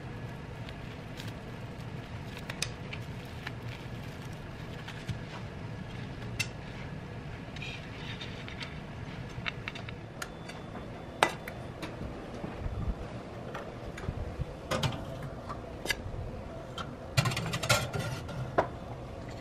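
Light clinks and taps of a knife, cutlery and a metal plate on a kitchen counter, scattered over a steady background hiss. Near the end comes a burst of metallic clatter as a metal plate goes onto an oven rack.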